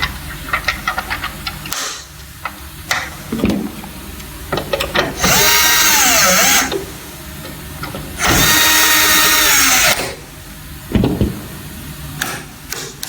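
Electric screwdriver driving in the cover screws: two runs of its motor whine, about one and a half and two seconds long, with clicks and knocks of handling the cover and tool before and between.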